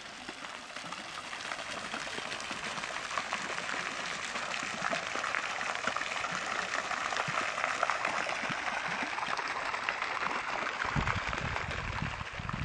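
Garden fountain jet splashing into its basin: a steady patter of falling water that grows louder toward the middle. A low rumble comes in near the end.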